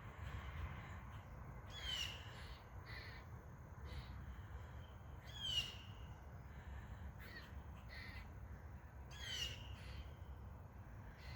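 A bird calling three times, a few seconds apart, each call short and falling in pitch.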